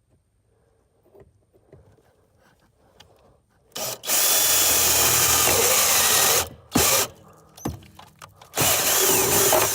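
Power drill boring a small pilot hole through the steel firewall. After a few seconds of near quiet it runs in a loud burst of about two and a half seconds, stops, blips briefly, then runs again in a second burst near the end.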